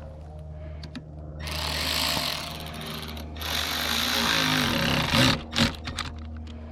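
Massimo Warrior 200 mini bike's small single-cylinder engine running, with two louder noisy stretches and a couple of sharp knocks about five seconds in.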